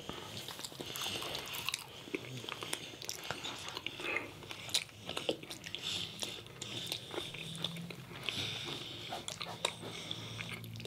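Close-up eating sounds: biting and chewing of food, with many small irregular mouth clicks.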